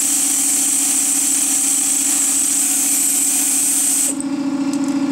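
Pneumatic air ratchet running steadily as it spins out a bolt, a high air hiss over the motor. It cuts off about four seconds in. A steady low hum runs underneath.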